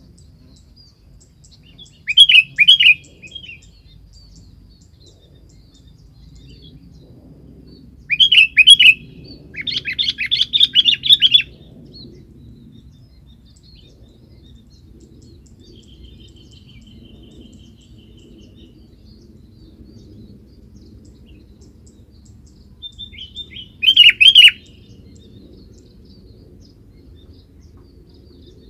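Sooty-headed bulbul (kutilang) calling in short bursts of quick, bubbly chattering notes, four bursts with long gaps between them; the third is a longer rapid run. A faint low rumble of background noise runs underneath.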